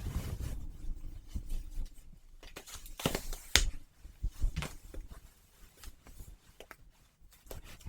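Latex gloves handled close to the microphone: irregular rustling and crinkling with sharp snaps and clicks, loudest about three seconds in.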